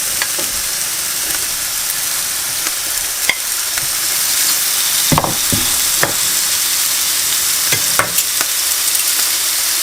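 Meatballs searing and sizzling in a very hot pan, a steady high hiss. Several sharp knocks against the pan come about halfway through and again near the end.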